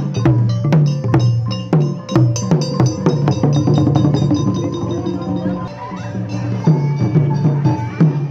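Traditional Khmer procession music: drums and percussion beat quick sharp strokes, about four or five a second, over sustained tones. The beating thins out after about five seconds.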